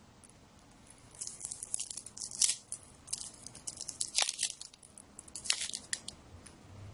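Crinkling and tearing of plastic wrapping as a sealed deck of cards is unwrapped, in irregular bursts of crackle from about a second in until near the end.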